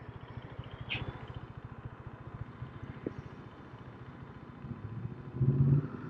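Vehicle engine idling with a steady low pulsing, then a short louder rev about five and a half seconds in.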